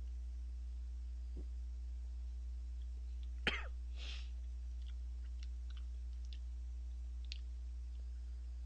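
A man eating ramen broth from a bowl makes one short, sharp mouth noise about three and a half seconds in, then a softer one just after. A few faint light clicks follow, over a steady low electrical hum.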